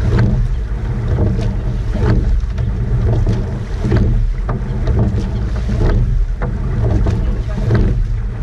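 Coxed rowing eight under way at racing pressure: oars knocking in their oarlocks and splashing at each stroke, about every two seconds, over a heavy low rumble of wind on the camera microphone and water along the hull.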